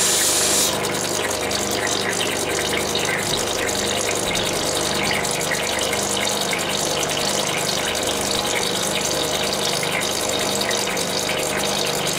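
Genie cabochon grinding machine running with its water feed on: a steady motor hum under the hiss and splash of water on the spinning wheels. A loud hiss of the opal being ground against a wheel stops under a second in.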